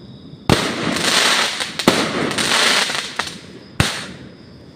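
Fireworks going off: a sharp bang about half a second in opens two to three seconds of dense crackling, with further bangs near two seconds and around three and four seconds in.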